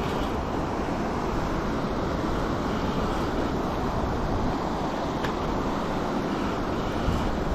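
Steady rush of a shallow, fast river running over rocks, with an uneven low rumble of wind on the microphone.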